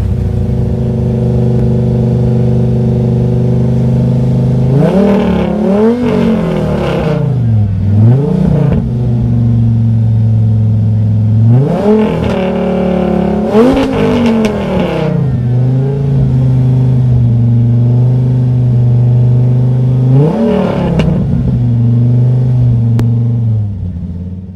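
Alfa Romeo TZ3 Stradale's Viper-derived V10 idling, blipped several times: a cluster of revs about five to nine seconds in, two more around twelve to fifteen seconds, and one near twenty-one seconds, each rising and falling quickly back to idle. The sound fades out at the end.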